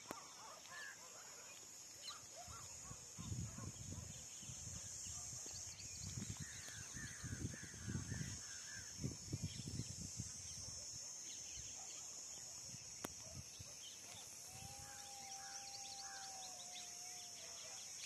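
Faint countryside ambience in open scrubland: a steady high-pitched hum, scattered bird chirps, and low rumbles around the middle. Near the end a single long call or horn-like tone holds for about three seconds and dips at its close.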